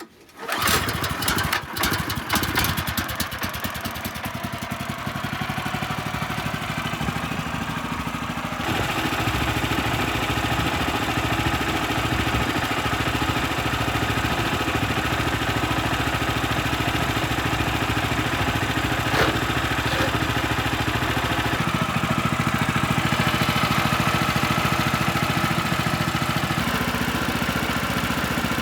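Portable sawmill's gas engine starting and running, then stepping up to a higher, louder speed about a third of the way in.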